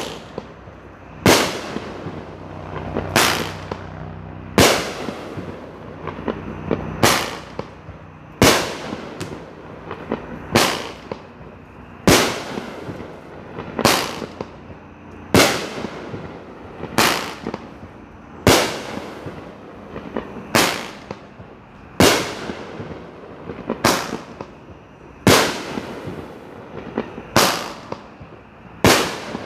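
Cutting Edge Fireworks' 'Survival of the Fittest' firework firing aerial shots that burst with a loud bang about every one and a half seconds. Each bang trails off in a short echo.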